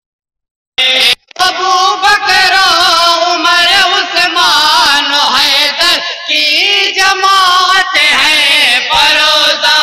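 Men singing a naat, an Urdu devotional poem, a lead voice drawing out long wavering melodic lines over a steady held note from the group. The singing cuts in abruptly after silence just under a second in.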